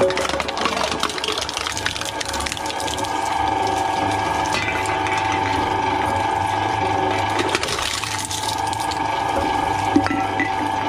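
Twin-shaft shredder running with a steady motor and gearbox whine, its toothed cutters rattling and crunching against the cans fed into the hopper. The crunching comes in clusters near the start and again around eight seconds in.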